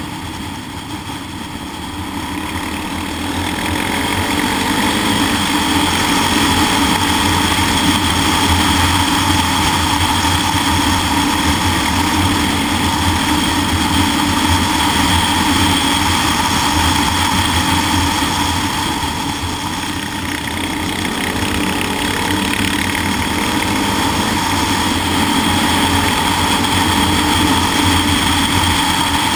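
Motorcycle engine running at a steady cruise, heard from the bike's handlebars, with wind and road noise mixed in. It gets louder a few seconds in and eases off briefly about twenty seconds in.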